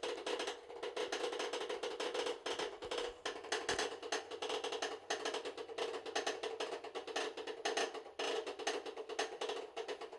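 Hitachi BeatWash washing machine running with a fast, irregular clattering knock over a steady hum: the abnormal noise of the broken machine.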